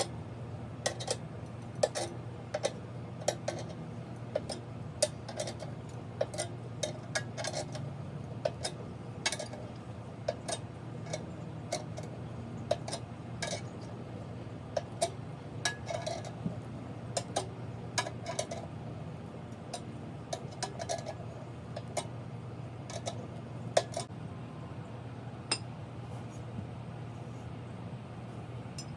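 Sharp metallic clicks and clanks at an uneven pace, about one or two a second, over a steady low hum: a car being raised with jacking equipment.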